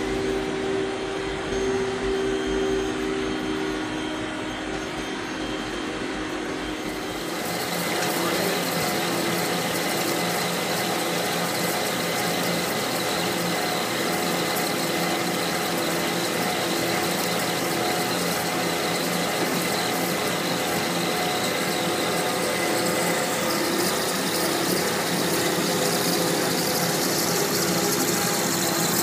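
Industrial machining equipment running steadily, the sound changing abruptly to a different machine about seven seconds in.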